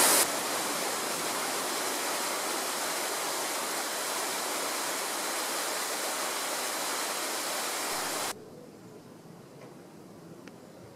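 Fountain water splashing and pouring over the stone rim of a basin, a steady rushing hiss. About eight seconds in it cuts off abruptly, leaving only a faint background hush.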